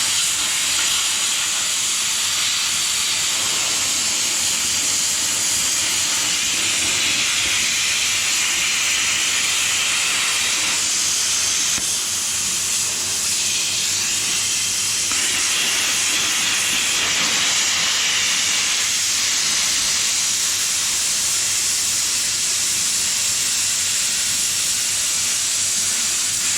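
Plasma cutter cutting sheet steel: a loud, steady hiss of the air-driven arc, held in one long continuous cut that shifts slightly in tone partway through.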